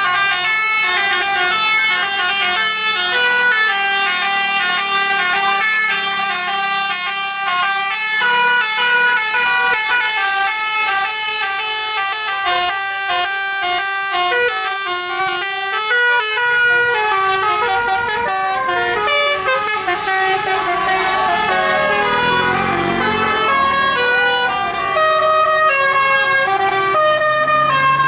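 Basuri-type telolet bus horn, a set of air-horn trumpets, playing a fast tune of short notes that step up and down one after another.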